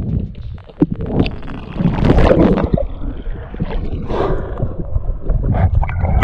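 Water gurgling and sloshing around the camera as a diver comes up from underwater and breaks the surface, with a loud rushing surge about two seconds in and another about four seconds in.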